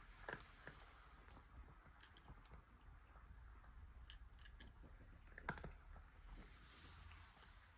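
A cat eating from a small bowl: faint, irregular clicks and crunches, the loudest about five and a half seconds in.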